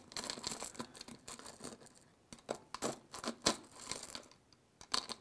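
A thin metal tool rummaging among small screws and bolts in a glass jar of vinegar, making irregular light clicks, clinks and scrapes of metal against metal and glass.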